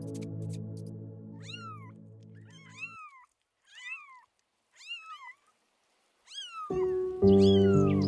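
Domestic kitten meowing: about six short, high-pitched mews, roughly one a second, each rising then falling in pitch.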